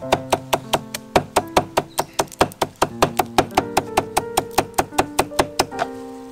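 Kitchen knife chopping a bundle of green leaves on a wooden chopping block: quick, even knocks of the blade hitting the wood, about five a second, stopping shortly before the end. Soft background music plays underneath.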